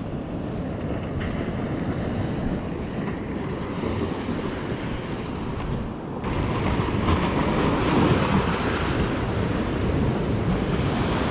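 Ocean surf washing in over a rocky shore, with wind rumbling on the microphone. About six seconds in, the wash of the waves turns louder and brighter.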